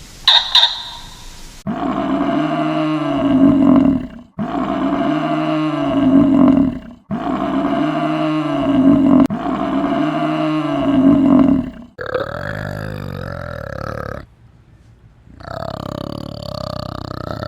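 An animal's low, drawn-out grunting calls: the same call about two and a half seconds long comes four times in a row, then two shorter, different calls follow with a short pause between them.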